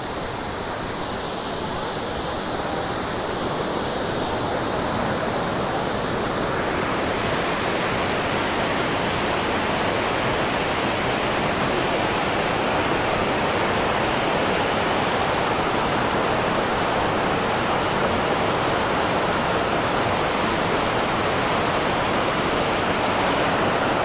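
Lady Barron Falls waterfall rushing steadily. The water grows louder over the first few seconds and turns brighter about seven seconds in, then holds steady.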